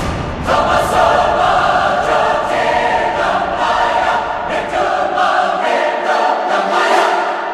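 Background choral music: voices singing sustained chords, fading out near the end.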